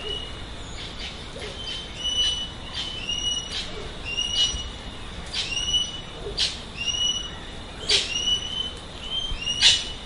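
Birds calling: a series of short, high whistled notes, roughly one a second, mixed with sharp, brief chips, the loudest chip coming near the end.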